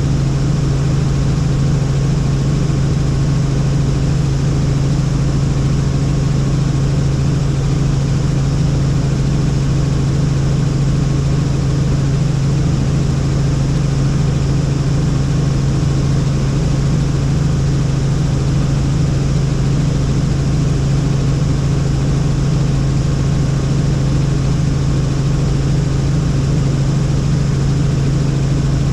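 Helicopter in flight, heard from on board: a steady, loud drone of engine and rotor with a strong low hum.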